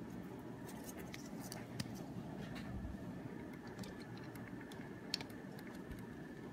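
Scattered small clicks and taps of a plastic Toy Biz Marvel Legends Taskmaster action figure and its accessories being handled as its sword and shield are fitted, over a steady low hum. The sharpest click comes about five seconds in.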